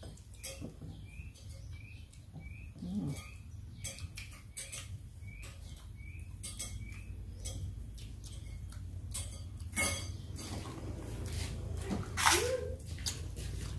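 A small bird chirping over and over, about two short rising chirps a second, which stop about halfway through. Scattered clinks of plates and cutlery come from the meal, and a short louder sound with rising pitch comes near the end.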